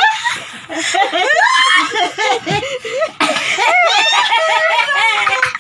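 Several women laughing hard together, with overlapping high-pitched peals of laughter.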